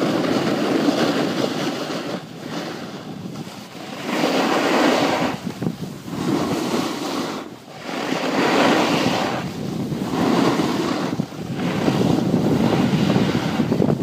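Snowboard sliding and scraping over packed snow, a loud rushing hiss that swells and fades every second or two as the board turns, with wind rushing past the microphone.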